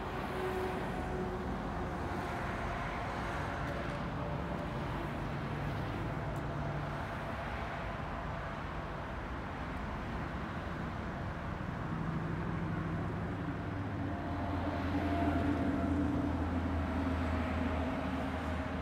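Street traffic noise with vehicle engines running; a nearby engine hum gets louder about three-quarters of the way through, then eases off.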